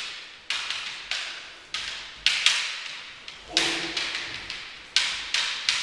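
Bamboo kendo shinai knocking against each other in sharp, irregular clacks, roughly two a second, as two fencers probe and parry with crossed blades. Each clack dies away quickly with a short echo.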